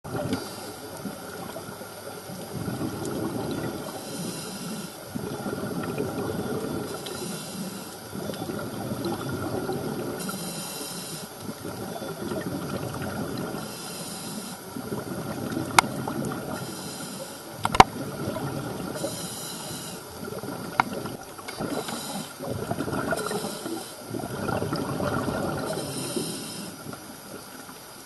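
A scuba diver breathing through a regulator underwater: a hissing inhale every few seconds, with bubbly exhales burbling between them. A few sharp clicks come near the middle.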